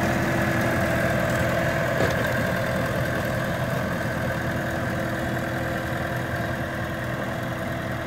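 Massey Ferguson 5455 tractor's four-cylinder diesel engine running steadily under load while pulling a two-furrow reversible plough, slowly fading as the tractor draws away.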